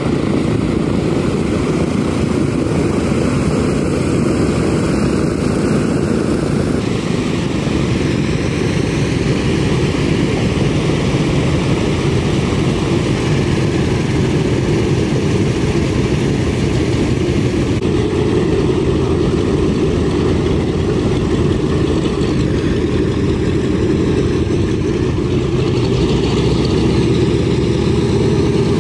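Propeller aircraft engines running steadily: for the first seven seconds or so a small plane in flight, then the four Wright R-1820 Cyclone radial engines of a B-17 Flying Fortress at taxi power.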